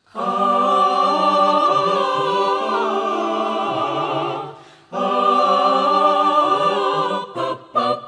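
Background music: an a cappella choir singing long held chords, with a brief break about halfway through and a few short cuts near the end.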